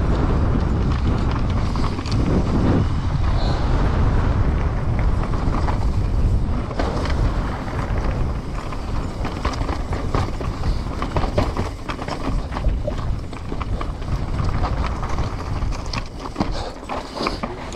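Trek Slash 9.9 enduro mountain bike riding down a rough trail: a loud, constant rumble of tyres and wind on the camera's microphone, with many clicks and knocks from rocks, chain and frame that come thicker in the second half.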